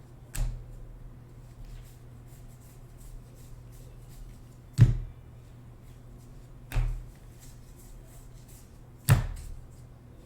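Four sharp knocks, spaced a few seconds apart, the one near the middle loudest, over a steady low hum, with faint light clicks in between.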